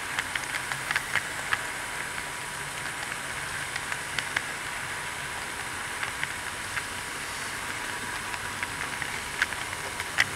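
00 gauge model train running along its track, heard from a camera riding on the train: a steady rolling hiss of wheels on rails with scattered sharp clicks and a faint low hum.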